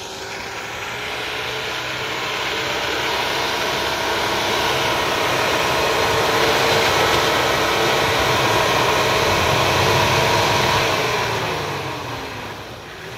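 Off-road 4x4's 4.2-litre non-turbo engine running hard under load, growing louder over several seconds. About eleven seconds in its revs drop and the sound fades.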